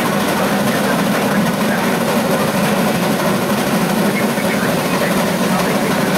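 Three-truck Shay geared steam locomotive No. 6 working under load, heard from its front end: its rapid exhaust beats and running gear merge into one steady, unbroken noise.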